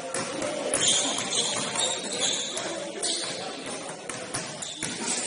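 Basketball game in play on an indoor court: scattered sharp knocks of the ball, with a stretch of high-pitched noise from about one to three seconds in.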